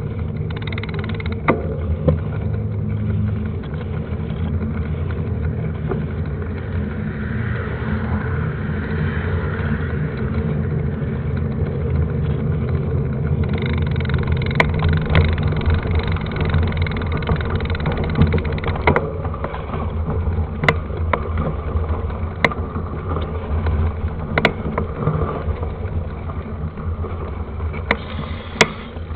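Steady low rumble of wind and ride noise on a camera carried on a moving mountain bike, with scattered sharp knocks and rattles from rough ground in the second half.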